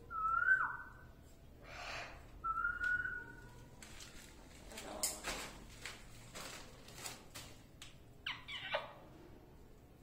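Parrot whistling: two short whistles in the first three seconds, the first bending down at its end, the second held level, followed by a run of short harsh noises and two quick falling calls near the end.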